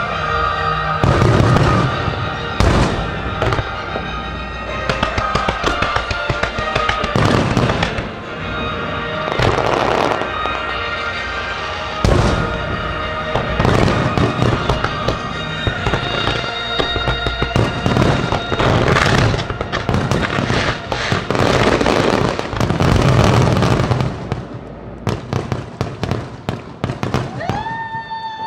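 Fireworks display: a dense barrage of shells bursting, with heavy booms every second or two over continuous crackling, thinning out over the last few seconds. Music plays underneath.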